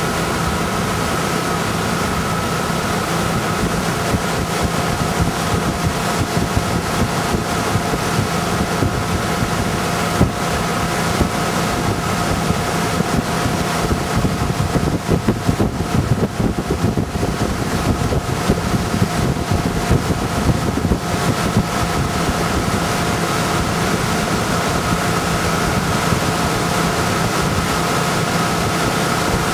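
Tow boat's engine running steadily at speed, with wind buffeting the microphone and the rush of the wake. The buffeting is heaviest about halfway through.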